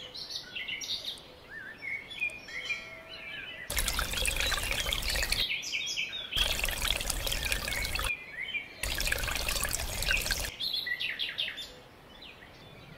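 Birds chirping throughout, with three stretches of running, pouring water, each a second or two long, that start and stop abruptly.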